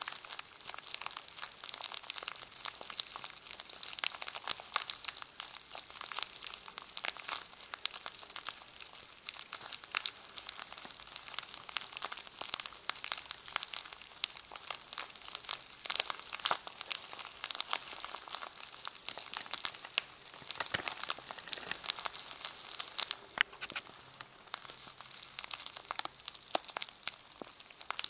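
Plastic packaging around a brush being handled close to the microphone, crinkling and crackling without pause, with many sharp crackles packed together.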